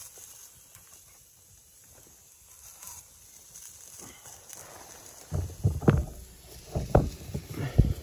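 A quick run of low thumps and knocks in the last three seconds, over a faint steady hiss.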